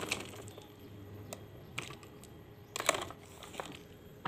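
Light, scattered clinks of a metal spoon knocking against ice cubes, a ceramic bowl and a drinking glass as ice is scooped into a glass of coffee, with a small cluster of clinks about three seconds in.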